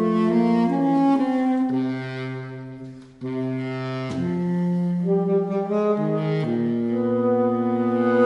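Saxophone trio of alto, tenor and baritone playing sustained chords, the three parts moving between long held notes. The sound dies away to a brief break about three seconds in, then all three come back in together.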